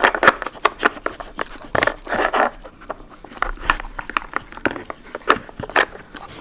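A Samoyed working a hard plastic dog puzzle board with its nose: irregular clicks and knocks as the plastic pegs and sliding pieces are pushed about, with short spells of sniffing at the treat holes.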